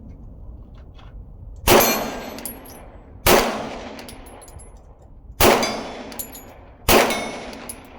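Four pistol shots fired at a slow, uneven pace about one and a half to two seconds apart. Each is followed by a high metallic ring from a steel target and a fading echo.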